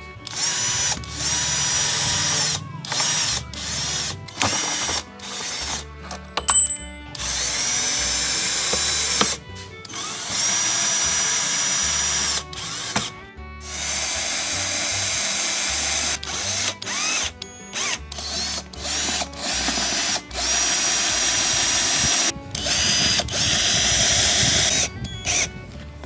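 Power drill driving screws through a caster wheel's metal mounting plate into a PVC pipe, running in short spells of one to two seconds with a steady high whine, stopping and starting about a dozen times. A sharp click about six and a half seconds in.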